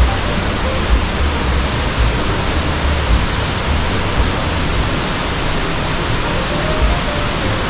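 Steady, loud rush of the Kaminari-daki waterfall, a dense even noise, with background music faintly underneath.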